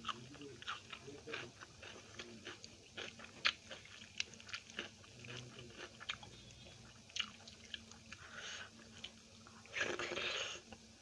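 Close-miked mouth sounds of a person eating rice with kadhi and mirchi pakoras: wet chewing with many small irregular smacks and clicks, and a louder noisy stretch about ten seconds in.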